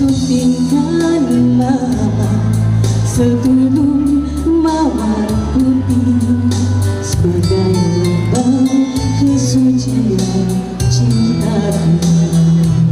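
A woman singing a Malay song into a microphone over backing music, with sustained bass notes and a steady beat.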